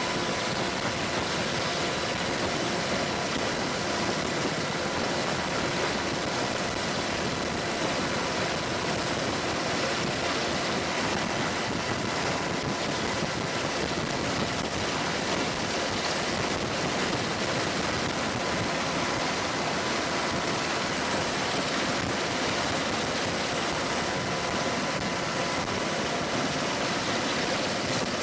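Steady engine noise: an even rush with faint steady whining tones running through it and no bangs or shots.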